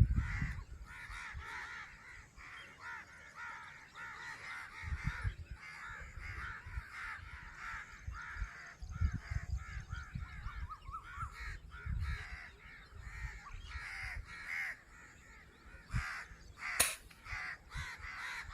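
A flock of crows cawing continuously, many calls overlapping, with a single sharp crack about 17 seconds in.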